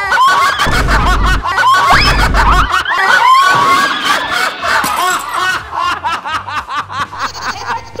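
Several people laughing hard together, with a woman's high shrieking laugh among them. Two deep booms sound in the first few seconds.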